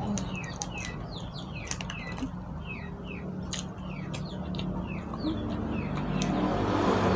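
Small birds chirping over and over in short, quick falling notes, with a few sharp clicks scattered among them and a steady low hum underneath.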